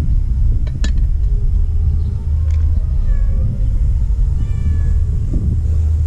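Steady low rumble of wind buffeting the microphone, with a single sharp knock of the cleaver on the wooden chopping board about a second in. Around the middle come a couple of faint high calls with a gliding pitch.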